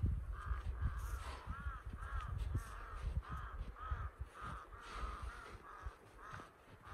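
Crows cawing in a quick steady series, about two to three caws a second, stopping shortly before the end. Under them come low, irregular thuds of a shovel digging into snow.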